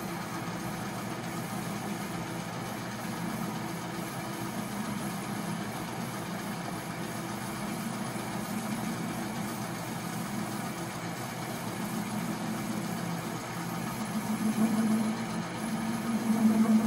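Metal lathe running while its cutting tool turns the groove in a steel pulley sheave: a steady machine hum with the hiss of the cut. Near the end the cut gets louder, with a buzzing hum.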